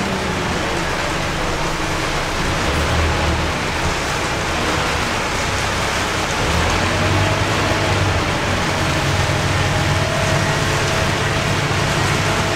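Heavy rain drumming on the roof and windows of a Scania K230UB city bus, heard from inside the cabin, over the low drone of the bus's Scania DC9 diesel engine. The engine drone grows louder about halfway through, as the bus pulls harder.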